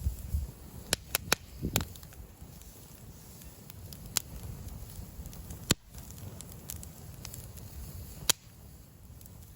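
Wood campfire crackling, with sharp pops at irregular intervals, about seven in all, over a low steady rumble.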